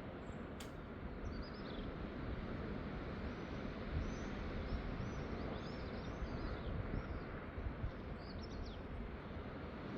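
Steady wind noise on the microphone, with small birds chirping in short runs of high, downward-sliding chirps, about a second in, again across the middle, and once more near the end. A single short click comes just before the first chirps.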